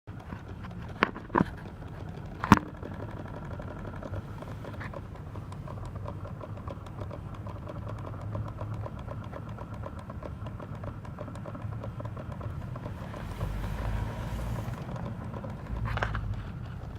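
Engine idling steadily with a fine, continuous ticking knock through it, after three sharp knocks in the first couple of seconds.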